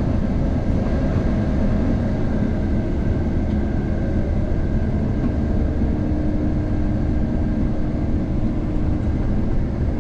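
Combine harvester driving on the road, its engine running steadily under load. A faint steady whine joins in about halfway through.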